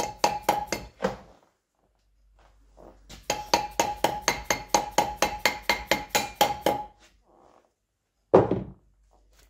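A hammer tapping rapidly on a steel machine part, about four or five blows a second, each blow ringing at the same metallic tone. One run of blows stops about a second in and another runs from about three to seven seconds. A single heavier, duller knock comes near the end.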